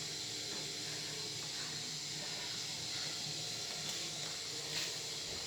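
A steady hiss, with a light knock near the end.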